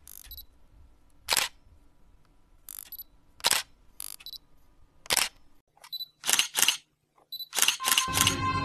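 Sharp camera-shutter clicks, about seven of them, spaced unevenly, with a few softer hissy swishes in between. Music comes in near the end.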